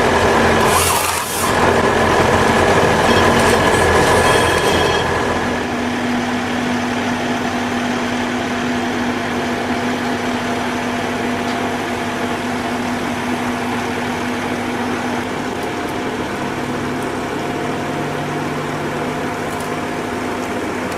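Machinery running with a steady mechanical hum and several held tones, louder for the first five seconds or so, then settling into a quieter, even hum.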